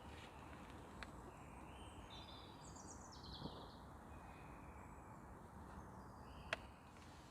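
Near silence with faint birdsong: a short run of chirps a couple of seconds in and a few more near the end, plus a couple of soft clicks.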